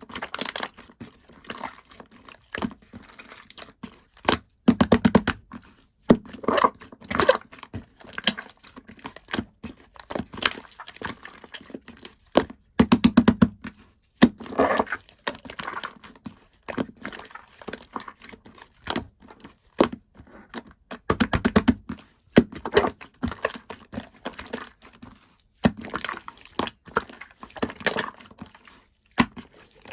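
Slime being squished, pressed and stretched by hand, with irregular sticky clicks and, three times, a run of rapid clicking pops of trapped air.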